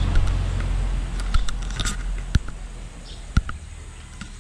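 Scattered clicks and knocks of hard plastic as a Hilti battery charger is handled against its moulded plastic carrying case, with two sharper clicks in the second half. A low steady hum underneath fades away over the first couple of seconds.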